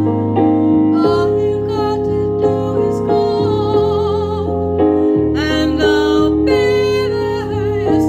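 A woman singing long held notes with vibrato over piano accompaniment.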